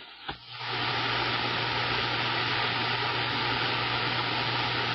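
CB radio receiver hiss: an open channel giving a steady rush of static with a low steady hum under it, after a short click and a drop in level as the previous transmission cuts off.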